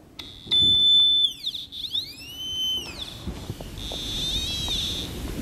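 Tri-field EMF meter switched on with a click and sounding its audible response: a high steady tone that glides down and back up in pitch, then a fainter warbling tone near the end.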